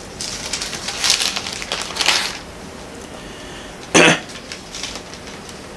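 Thin Bible pages being leafed through and rustled, a run of crinkly paper noises over the first two seconds or so, followed by one short, loud burst about four seconds in.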